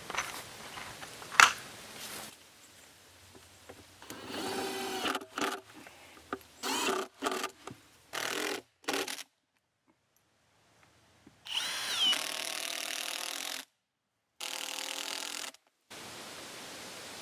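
Cordless drill driving screws through steel angle brackets into a pine countertop slab, in several short bursts of motor whine broken by abrupt cuts. A sharp knock comes about a second and a half in.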